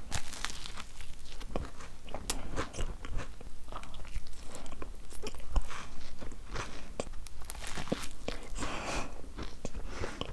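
A person biting and chewing crisp food, with many irregular crunches.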